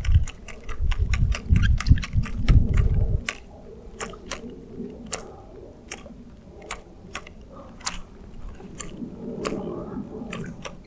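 Sharp, irregular clicks, about one to three a second, from a fishing rod and reel as a walk-the-dog topwater lure is twitched and reeled back. A low rumble runs under the first three seconds, then stops.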